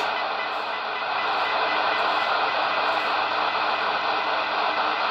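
Super Jopix 2000 CB transceiver's speaker giving a steady rushing hiss of receiver static while a weak test signal is fed in near the limit of its sensitivity. There is a single click right at the start.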